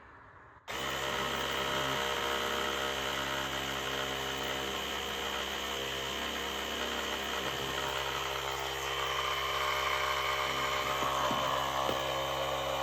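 A Geeneu portable jump starter's built-in air compressor switches on suddenly about a second in and runs steadily and very loud, pumping air into a very flat tire.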